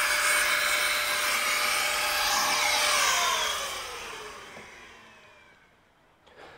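Electric air blower running at full speed with a high whine, switched off about three seconds in and spinning down, its pitch falling as it fades out.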